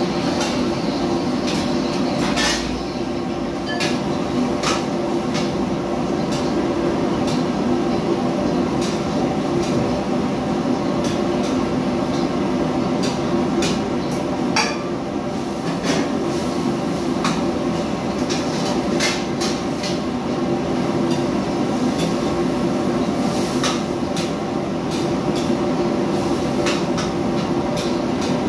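Metal spatula knocking and scraping against a wok during stir-frying: irregular sharp clicks, one or two a second, over a steady drone from the kitchen's extractor hood and wok burner.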